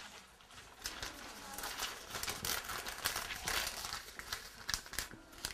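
Rustling and crinkling of handled material with many small irregular clicks, busiest in the middle of the stretch.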